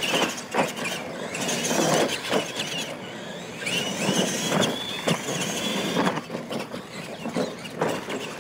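Radio-controlled monster trucks racing on dirt: electric motors whining, rising and falling in pitch, with tyres scrabbling over the dirt. Several knocks are heard as the trucks hit and land off the ramps.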